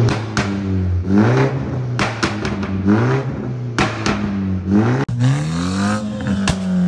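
BMW G20 330i's turbocharged four-cylinder engine blipped repeatedly, about once a second, rising and falling in revs. Sharp pops and crackles fire from the decat exhaust as each rev drops, the sign of a tune with an overrun pops-and-crackles map.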